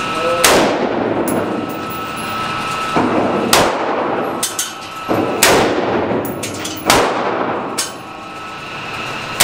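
Single shots from a 5.56 AR-15-style rifle: four loud reports spaced about one and a half to three seconds apart, another just at the end, each ringing out in the enclosed range. Fainter sharp cracks come between them.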